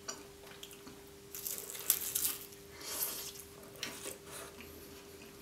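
Close-up eating sounds: biting into and chewing a cheese-filled meat pie with a pastry crust, with a few crunchy bites from about a second and a half to four seconds in.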